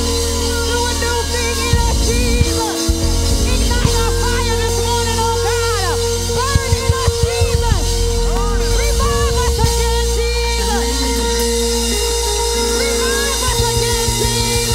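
Live church worship band playing held, slow chords over a steady low bass, with bending melodic lines above and a quick run of sharp hits, likely drums, about halfway through.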